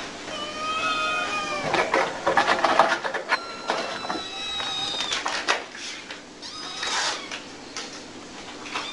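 Several hungry kittens meowing: long, drawn-out, high-pitched mews, some overlapping. Loud scratchy scuffling fills the gap about two to three seconds in.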